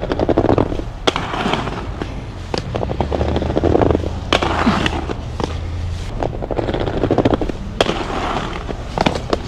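Aggressive inline skate wheels rolling over rough concrete, with a few sharp clacks as the skates strike the ground.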